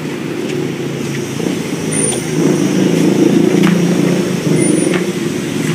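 A motor vehicle's engine running close by, swelling louder from about two seconds in and easing off near the end, with a few sharp knocks over it.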